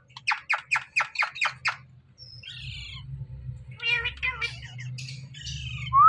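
Indian ringneck parakeets calling: a quick run of about eight sharp squawks in the first two seconds, then a harsher falling screech, then a spell of chattering calls.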